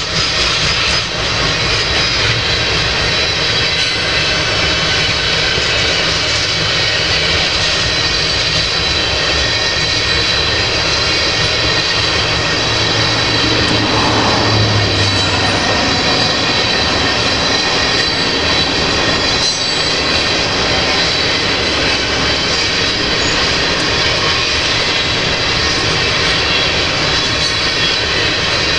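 Freight train of tank cars rolling past: steady, loud noise of steel wheels running on the rails, without horn.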